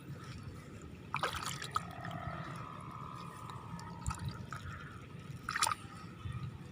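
Hands digging into a waterlogged eel burrow in rice-paddy mud: wet mud squelching and water sloshing and dripping, with louder splashes about a second in and near the end.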